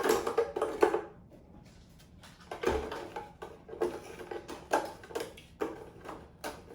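Graham crackers being broken and dropped into a plastic food processor bowl: an irregular clatter of light knocks and crunches, dense in the first second, pausing briefly, then scattered again.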